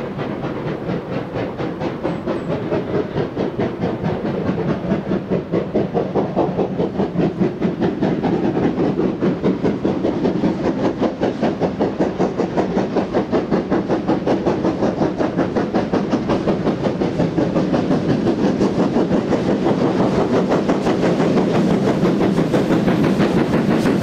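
Two steam locomotives double-heading a train and working hard: a rapid, overlapping run of exhaust beats from both chimneys, with the clatter of the train, growing louder as it comes closer.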